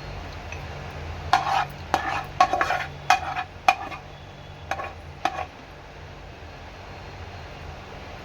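A spoon scraping and clinking against a cooking vessel in a run of about a dozen quick strokes, starting about a second in and stopping about five and a half seconds in, over a steady low hum.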